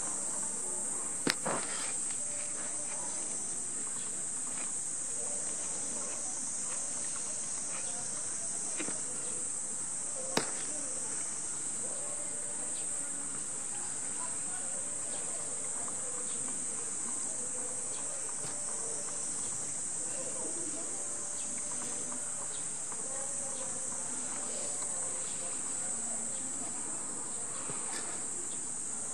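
Cicadas droning in a steady high-pitched summer chorus. Two sharp clicks stand out, about a second in and about ten seconds in.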